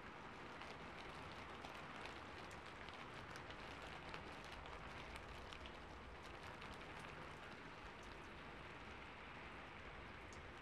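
Rain falling on a rooftop: a faint, steady hiss with many small drop taps scattered through it.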